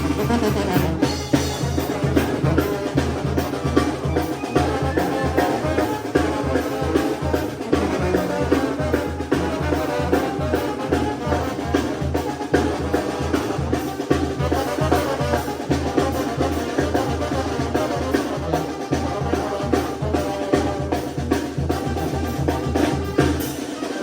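A Mexican banda, brass instruments, playing a tune over a steady bass drum beat.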